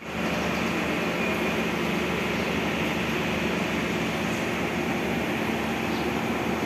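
Steady running noise of a passenger train moving slowly out of the station, heard from aboard the carriage, over a steady low hum.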